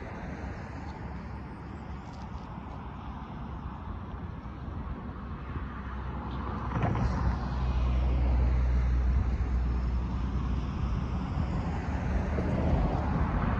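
Cars and light traffic driving across a railroad crossing, tyre and engine noise. From about seven seconds in, a vehicle passing closer makes it louder with a low engine hum, starting with a short knock.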